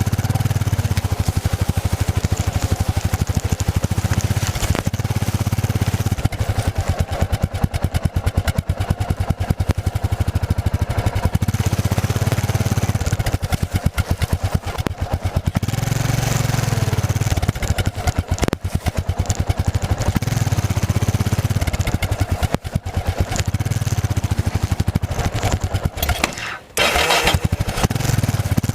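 Yamaha XT660Z Ténéré's single-cylinder four-stroke engine running under way, the throttle opening and easing in turns. The engine sound dips briefly near the end.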